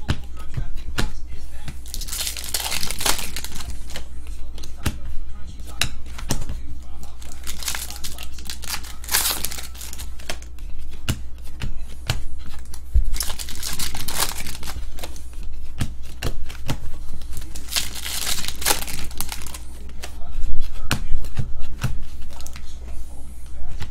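Trading-card pack wrappers crinkling and tearing open, with cards being shuffled and flicked through by hand in light clicks; the loudest bursts of crinkling come about 3, 9 and 19 seconds in.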